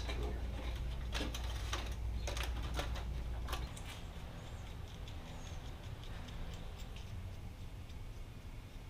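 Handling noise of small plastic parts and wiring: a handful of sharp clicks and taps in the first few seconds over a low hum, which drops away about four seconds in, leaving only faint scattered clicks.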